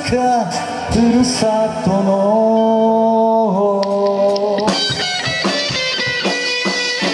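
Live rock band playing: a male voice sings held, bending notes over guitars and keyboard, then about five seconds in the voice drops out and the band plays on with electric guitar and drum hits.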